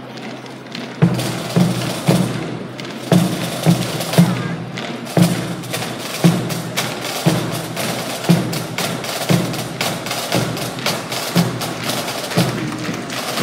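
A drill team's boots and rifles striking in unison: sharp knocks with an echo, irregular at first, then a steady beat of about one a second as the squad marches.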